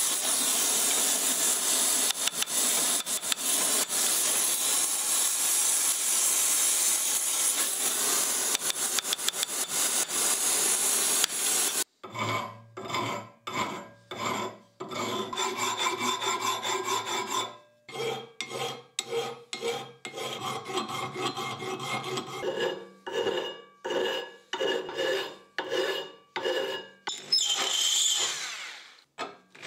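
Gas torch flame hissing steadily against the steel vise frame for about twelve seconds, then a hand file rasping over the frame in repeated strokes, a little more than one a second. Near the end a drill spins a brass wire brush briefly.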